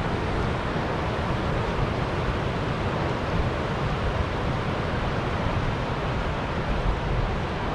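Steady rush of river water running over rocky rapids, with wind buffeting the microphone.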